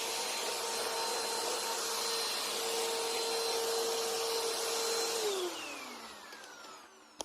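Bissell PowerLifter Pet bagged upright vacuum running steadily with a high motor whine, then switched off about five seconds in: the whine falls in pitch and fades as the motor spins down, with a sharp click near the end.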